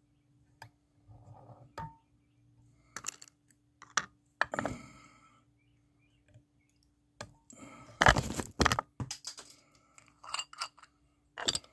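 Small metal fly-tying tools handled at the vise: scattered clicks, taps and light clatter, with a louder scraping, rustling stretch about eight seconds in. A faint steady hum runs underneath.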